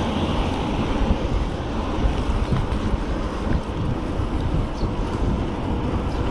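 Wind noise buffeting a GoPro's microphone while riding an electric bike along a road: a steady rushing haze with an uneven low rumble.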